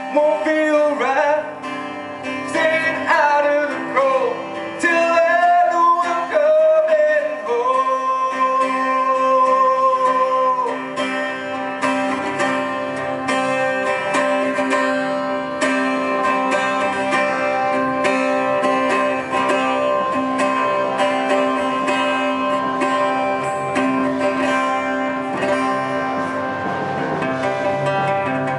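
Live solo song: a man singing over a strummed acoustic-electric guitar, amplified through a PA. The vocal line ends on a long held note about ten seconds in, and the guitar keeps playing on its own after that.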